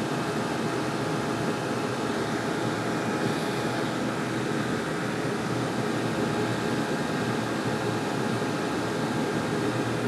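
Diesel heater running steadily at full burn: a constant rushing hum from its combustion fan and burner, with a faint steady whine, unchanging in level.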